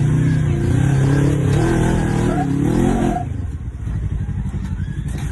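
Off-road vehicle engine revving hard under load, its pitch climbing for about three seconds, then dropping off suddenly to a lower, rougher running.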